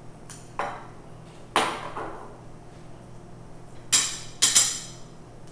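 A metal spoon clinking against a serving bowl and a stainless-steel ring mold while guacamole is spooned into the mold: a few light taps in the first two seconds, then two loud ringing clinks about four seconds in.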